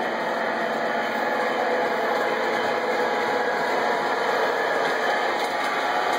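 O-scale model diesel locomotive and its train running along the layout track, giving a steady mechanical rumble of motors and wheels on the rails.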